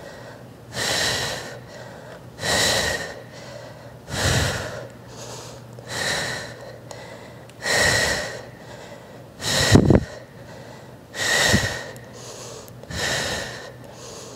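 A woman breathing hard from exertion during a set of exercise reps: about eight forceful breaths, one every second and a half to two seconds, with one sharper, louder breath about ten seconds in.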